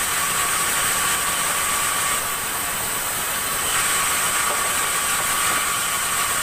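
Sawmill saw running with a steady high whine and hiss, the sound shifting slightly a couple of times.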